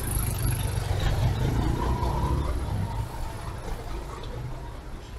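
A car going past on the street, its engine rumble loudest in the first couple of seconds and then fading away.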